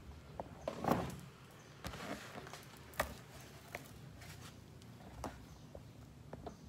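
Cardboard box being handled: scraping and rustling with a few sharp knocks on the cardboard, the loudest about a second in.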